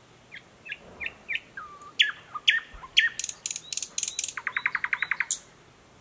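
Thrush nightingale singing one song phrase. Soft falling notes build into a few loud, sharp notes, then a run of dry clicks, then a fast rattle of about ten notes a second before the phrase stops.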